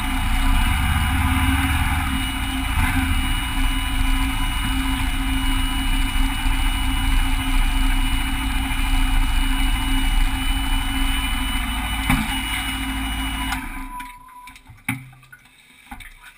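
Motorcycle engine running steadily at low revs while the bike moves slowly, then switched off near the end, the running sound cutting out abruptly.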